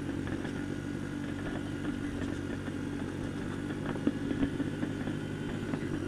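Small single-cylinder four-stroke dirt bike (Honda CRF150F) running steadily at low speed over a rough dirt track, with scattered knocks and clatter from the bumps, the sharpest about four seconds in.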